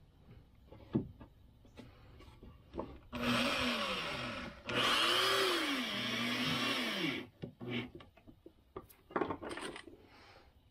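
Red corded electric drill driving long square-headed screws through a wooden boat seat: two runs about three seconds in, the second longer, the motor's pitch dipping and recovering during each run. Small handling clicks before and after.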